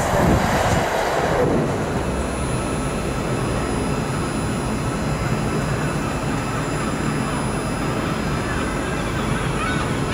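The tail of a container freight train rumbling past on the rails, cut off abruptly about a second and a half in. A steady mechanical hum follows.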